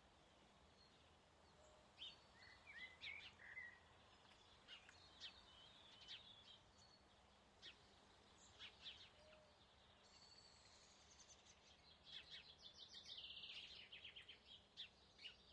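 Faint birdsong in a forest: scattered chirps and short calls from small birds, with a rapid trill of quick repeated notes near the end, over a quiet steady background hiss.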